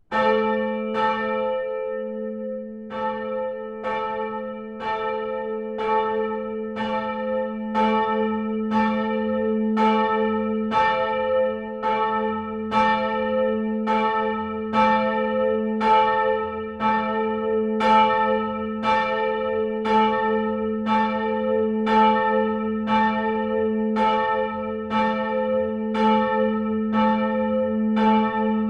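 Church bell ringing. It starts suddenly out of near silence, then strikes about once a second, and its tone rings on between the strokes.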